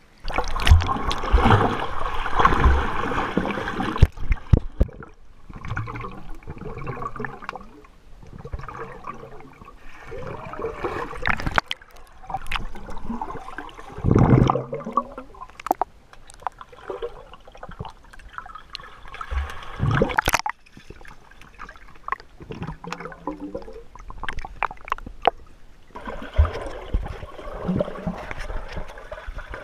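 Pool water heard through a GoPro in its waterproof housing, mostly underwater: muffled gurgling, bubbles and irregular splashing surges with sharp knocks as children swim and dive around it.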